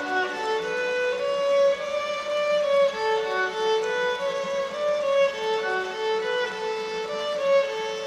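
Solo violin bowed in a concrete tunnel, playing a slow melody of long held notes.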